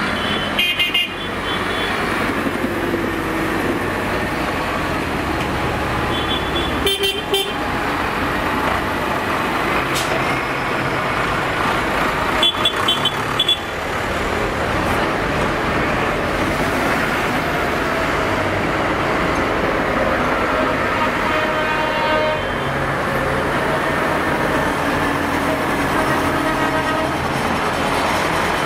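Farm tractors' diesel engines running as they drive past one after another, with horns tooting in three short bursts, a few seconds apart in the first half.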